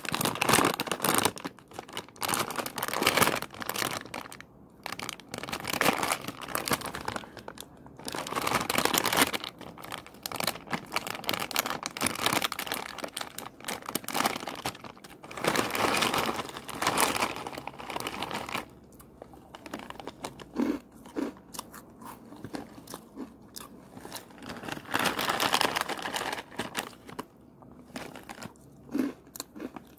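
Crinkling and rustling of a foil snack bag of Twisties corn cheese puffs being handled and torn open, in irregular bursts, with crunching and chewing of the puffs near the end.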